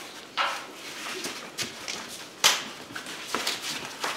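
Two sumo wrestlers grappling in a practice bout: a series of short, sharp, breathy grunts and exhalations with slaps of body contact, about half a dozen in four seconds, the loudest about halfway through.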